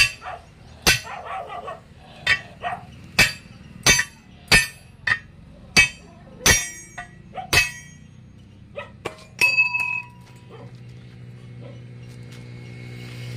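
Sledgehammer striking a steel tyre lever driven in at the bead of a truck tyre on its steel rim to break the bead: about ten sharp metal-on-metal blows at uneven intervals over the first eight seconds. About nine seconds in, a ringing clink of steel on steel.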